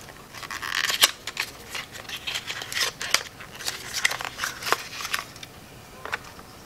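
Irregular light clicks and rustles of a small perfume sample vial and its packaging being handled and opened, with a sharper click about a second in, thinning out near the end.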